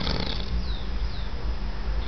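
A sleeping man's breathing in the pause between two snores, over a steady low rumble. Two short falling whistles come about half a second apart near the middle.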